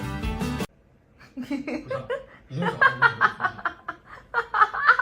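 Guitar music stops abruptly under a second in; after a brief pause a person laughs and chuckles repeatedly, growing louder from about two and a half seconds in.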